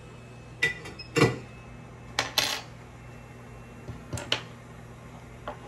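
Small metal hand tools clinking and clattering on a workbench as they are picked up and set down: a string of sharp, irregular clicks and taps, two of them louder.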